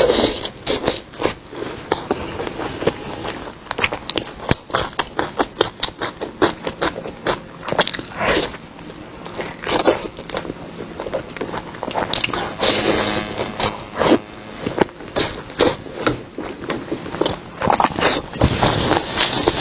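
Close-miked eating sounds of braised pork ribs being bitten and chewed off the bone: a dense, irregular run of short wet clicks and crackles, with a louder stretch of chewing noise about two-thirds of the way in.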